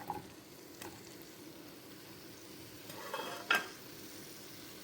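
Finely chopped potatoes frying in oil in a pan, a steady low sizzle, with a few knocks of a utensil against the pan about three seconds in as they are stirred.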